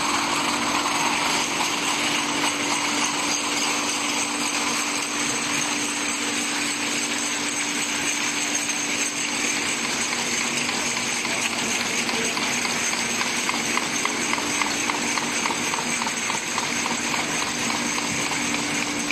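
Horizontal cartoning machine for glass syrup bottles running steadily: a dense mechanical clatter over a steady hum. In the second half a quick ticking, about four a second, comes through for several seconds.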